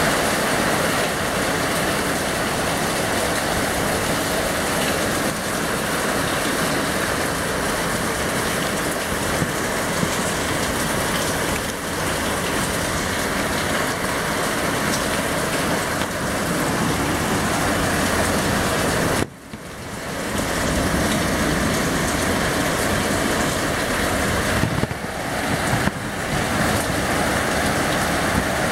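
Heavy rain pouring steadily, a loud, dense, even hiss. About two-thirds of the way through, the sound suddenly drops out and swells back over a second or so.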